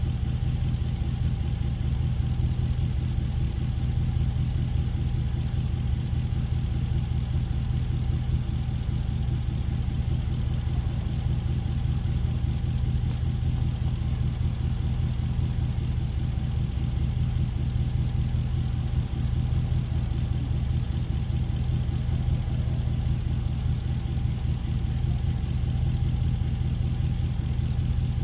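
An engine idling steadily, with an even, unbroken running note and no change in speed.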